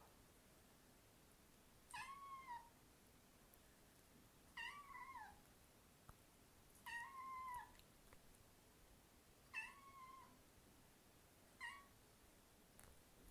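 Domestic cat meowing five times, short meows that rise and then fall in pitch, about two to two and a half seconds apart.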